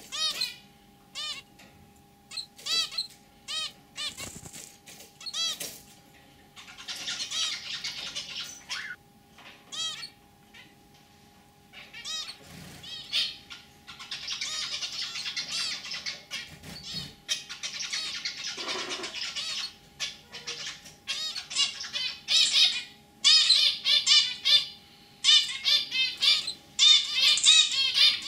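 Zebra finches calling and singing: short, nasal, clipped calls spaced apart at first, longer runs of rapid chattering song in the middle, and louder, quicker calls crowding together near the end.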